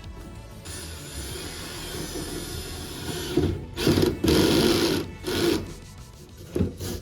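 A cordless drill spinning a dryer-vent cleaning brush, the brush scraping and rubbing inside the duct in loud, uneven bursts, over background music.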